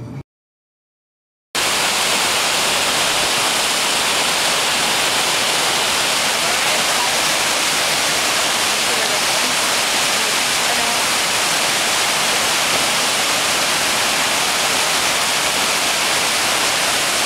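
Alberta Falls, a mountain waterfall cascading over granite boulders, rushing with a steady even roar. It starts abruptly about a second and a half in, after a moment of silence.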